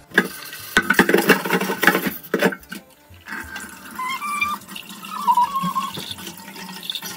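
Water running from a tap into a kitchen sink while dishes are washed by hand, with metal dishes clattering several times in the first three seconds. The water goes on more quietly after that.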